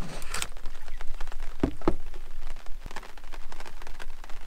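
A fine, irregular patter of ticks throughout, with a short rustle at the start and two dull knocks a little under two seconds in.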